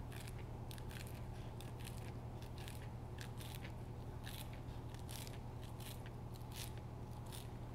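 Kitchen knife chopping rolled fresh basil into thin strips on a plastic cutting board: a run of light, quick taps and slices, about three a second.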